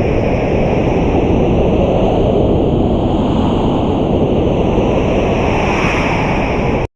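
Steady rush of blowing air, holding level throughout, then cutting off abruptly just before the end.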